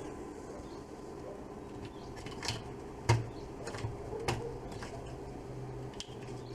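A few short clicks and knocks from handling a sewing machine foot pedal and multimeter probes during a resistance test, over a steady low hum.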